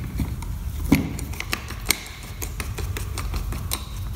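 A screwdriver turning a screw on the metal head of an electric band file: scattered light clicks and ticks of the tip and handle against the metal.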